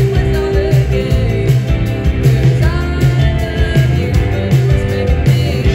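Live rock band playing over a PA: drums, bass and electric guitars, with a woman singing into a microphone.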